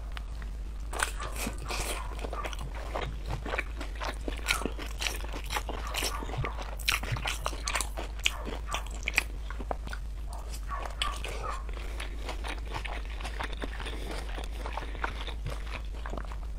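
Close-miked biting and crunchy chewing of a thick, long green-and-orange seafood, many irregular sharp crunches, over a steady low hum.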